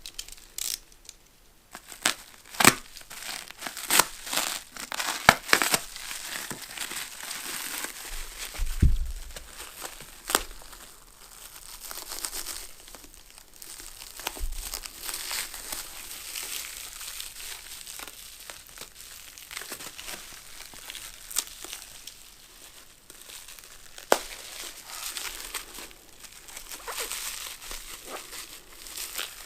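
Packing material crinkling and tearing as it is pulled apart, with many small sharp crackles and a few louder knocks.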